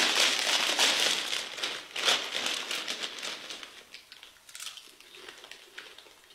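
Doritos chip bags crinkling loudly as they are pulled open, with a sharp crackle about two seconds in, followed by fainter, sparse crunches of tortilla chips being bitten that fade toward the end.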